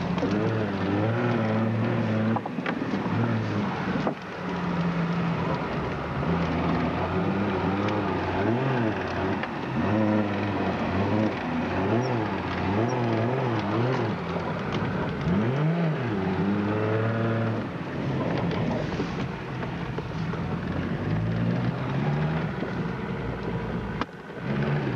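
Nissan Patrol's engine heard from inside the cab while driving off-road through snow. Engine speed rises and falls repeatedly, with several quick rev swings in the middle.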